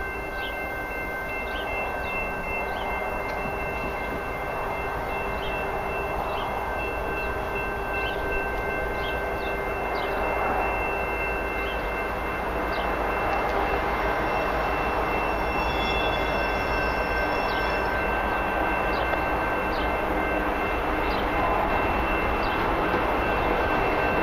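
Level-crossing warning bell ringing steadily while an approaching CN freight train's rumble slowly grows louder.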